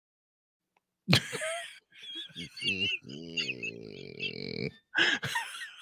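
Two men laughing hard, starting about a second in after a moment of dead silence. The laughter comes in breathy bursts, with one long, wavering high laugh in the middle and a few more short bursts near the end.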